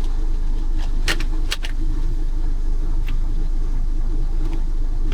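Lawn mower engine running steadily, a continuous low drone; two sharp clicks a little over a second in.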